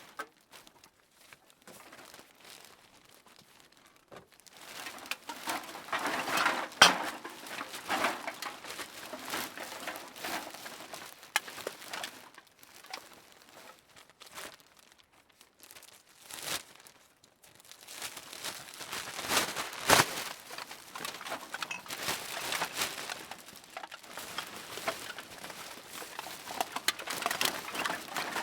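Empty beer and soda cans being tossed into a bag for recycling, clattering against each other and rustling the bag. The sound comes in irregular bursts of clinks and crinkles, with short quieter pauses between handfuls.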